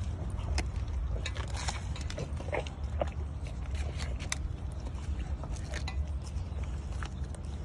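A Rottweiler chewing and crunching a piece of chicken, with irregular sharp crunches and clicks from its jaws, over a steady low rumble.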